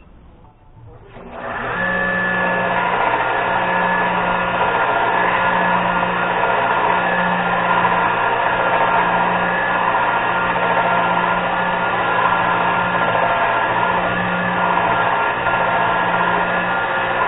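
Angle grinder spinning up about a second in and then running steadily under load, working steel, with a steady motor whine.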